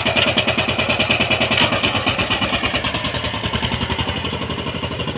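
Two-wheel power tiller's single-cylinder diesel engine running under way, a rapid, even chugging of firing strokes, growing a little fainter toward the end as it drives off.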